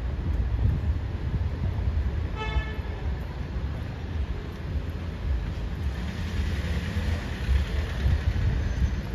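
Steady low rumble of city street traffic, with a short horn toot about two and a half seconds in.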